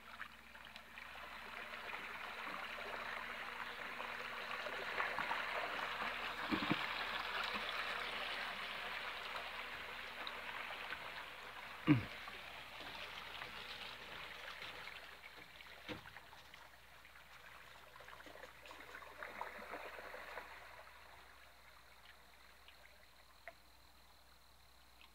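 Water splashing and churning in the wake of a small flat boat under power as it passes close, building up over a few seconds and then fading away. A single sharp knock comes about halfway through.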